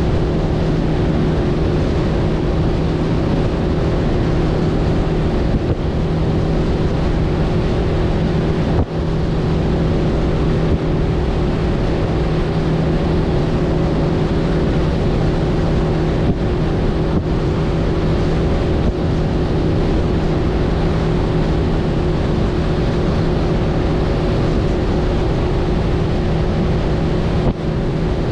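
Mercury outboard motor running at a steady cruising speed, a constant drone, with wind on the microphone and water rushing past the hull.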